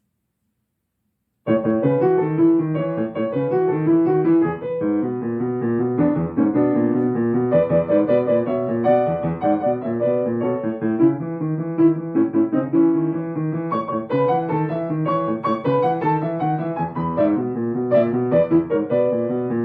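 Piano being played solo: after a second or so of silence the playing starts abruptly, a quick, busy run of many notes with a steady accompaniment underneath.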